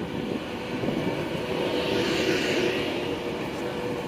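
Class 390 Pendolino electric train running past along the platform: a rumble of wheels on the rails with a steady hum over it, growing slightly louder, and a swell of hiss about two seconds in.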